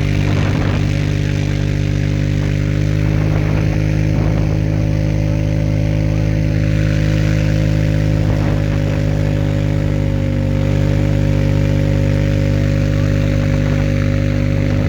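A motor running at a steady speed, a constant droning hum that does not rise or fall.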